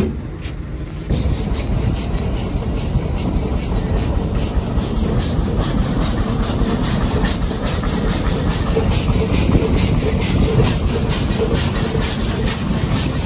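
Steam traction engine (the 150 Case road locomotive) working hard, its exhaust chuffing up the stack in an even rhythm of about three beats a second over a steady low rumble and hiss of steam. It starts about a second in.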